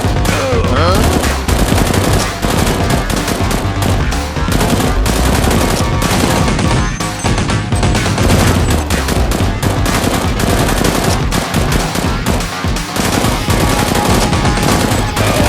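Rapid, continuous automatic-gunfire sound effects over background music.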